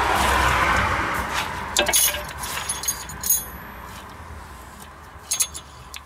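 Metal tools clinking and knocking, with a rough noise that fades over the first couple of seconds and then a few sharp clinks about two seconds in, a little after three seconds and near the end.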